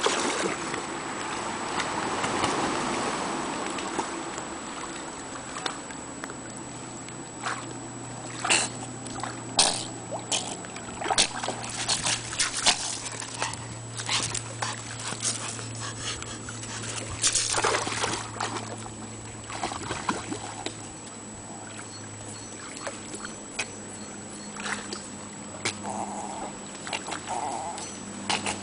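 Pomeranian whimpering, with many short sharp knocks and clicks scattered throughout and a low steady hum from about six seconds in.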